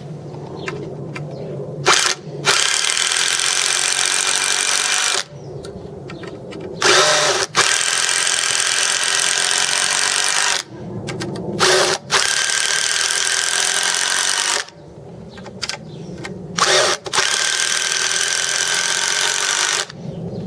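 A JCB 18 V brushless cordless power tool runs in four bursts of about three seconds each, each burst started by a brief blip on the trigger.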